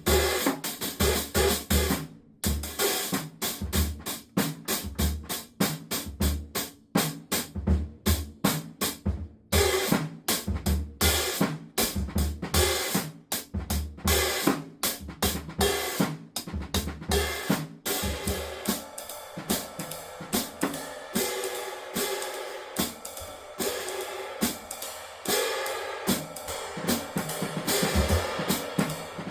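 Drum kit played in a steady groove with bass drum, snare, hi-hat and a 17-inch cymbal. About two-thirds of the way through, the bass drum mostly drops out and the ringing cymbal wash carries on.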